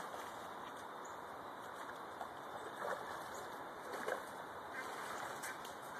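Shallow creek water running over stones, with a few short faint duck quacks about two, three and four seconds in.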